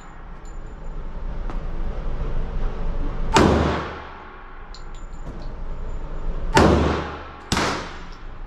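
Three gunshots at an indoor shooting range, each ringing off into a long echo: one about three and a half seconds in, then two about a second apart near the end, the last one weaker.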